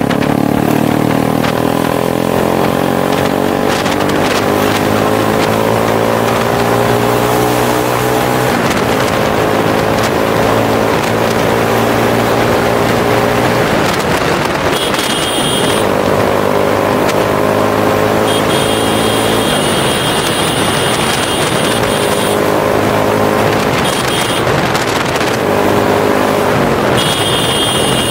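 Motorcycle engine running at a steady cruising speed under heavy wind noise on the microphone, its pitch easing slightly now and then. A thin high whine comes and goes in the second half.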